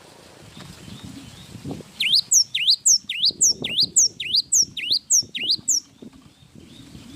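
Cinereous tit (gelatik batu) singing a run of about eight sharp, repeated two-part whistled notes, roughly two a second, starting about two seconds in and stopping near the end. Soft rustles and light knocks can be heard beneath the song.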